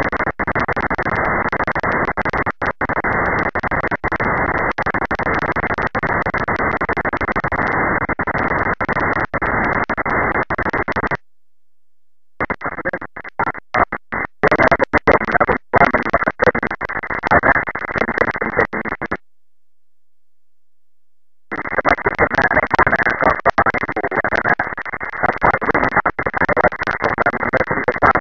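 Demodulated FM audio from an HDSDR software-defined receiver tuned to 145.925 MHz on the 2-metre amateur band: a loud, rough static hiss, choppy with many brief dropouts. It cuts out completely twice, briefly about 11 seconds in and for about two seconds about 19 seconds in.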